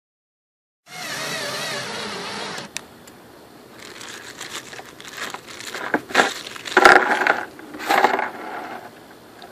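Small plastic bag of stainless steel screws crinkling and rustling as a hand rummages in it for screws, in uneven bursts that are loudest near the end. About a second in, a different steady sound runs for under two seconds before the rustling starts.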